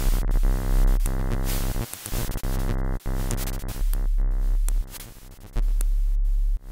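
Electronic intro music with a heavy deep bass, playing in choppy blocks that cut off and restart every second or so.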